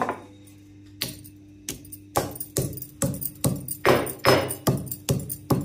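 Stone pestle pounding almonds and cashews in a stone mortar: a few separate knocks at first, then regular strikes about two to three a second that grow louder as the nuts are crushed.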